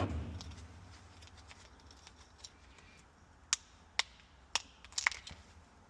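Quiet room tone broken by a few sharp, separate clicks and taps from parts being handled during the refrigerator fan repair. The clicks come in the second half, about half a second apart.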